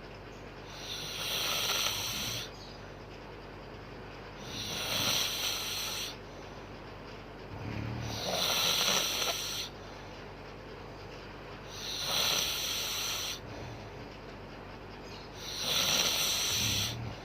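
A woman snoring in her sleep: a breathy, hissing snore on each breath, five of them at an even pace of one every three to four seconds.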